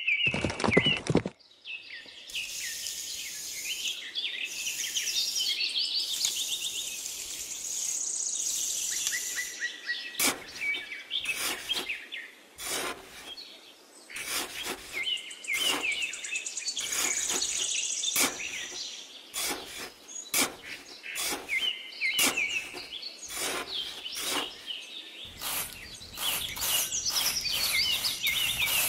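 Small birds chirping and singing in the background. From about ten seconds in, a small hand trowel scrapes and digs in loose sand over and over.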